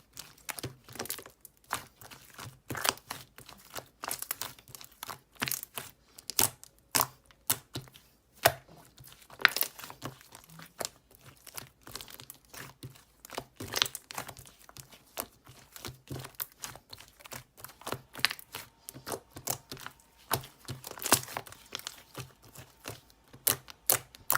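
Irregular crisp clicks and crackles, several a second, some much louder than others, like a material being crinkled or pressed by hand.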